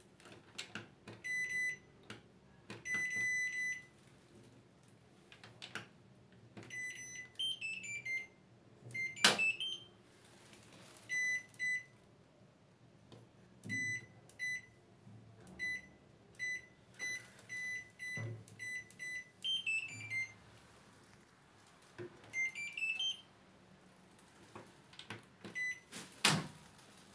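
Washing machine control panel beeping as its buttons are pressed and its program knob is turned: many short single beeps, a few quick falling and rising tone jingles as the machine is switched off and on, and two sharp clicks, the loudest about nine seconds in and near the end.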